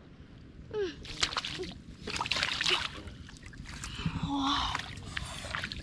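Muddy water splashing and sloshing in irregular bursts as hands work through a wet, muddy field after fish.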